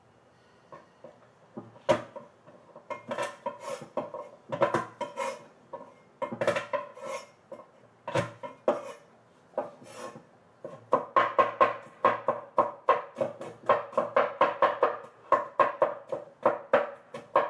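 Chinese cleaver knocking on a wooden cutting board while garlic cloves are sliced and chopped: scattered knocks in short groups at first, then from about eleven seconds in a fast, even chopping rhythm of roughly three to four strokes a second.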